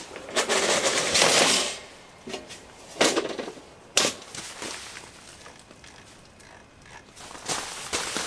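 A portable pull-up projector screen being lowered and packed into its case, first a sliding rustle, then two sharp clacks about a second apart, with lighter knocks of gear being handled near the end.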